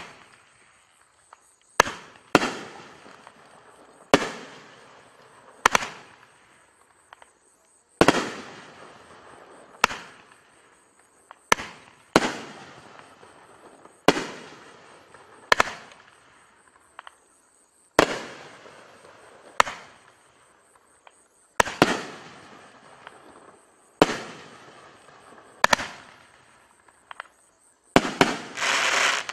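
Magnus Echo Blast, a 500-gram consumer firework cake, firing its shots one after another: sharp bangs come about every two seconds, each trailing off over a second or so. Near the end a longer, denser burst of noise follows.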